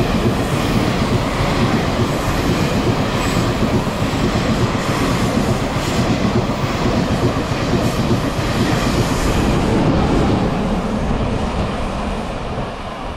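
A Taiwan Railway Tze-Chiang express, an E1000 push-pull set, passes through a station at speed. Its passenger cars make a loud, steady rush with wheels clacking over the rail joints, fading over the last few seconds as the train pulls away.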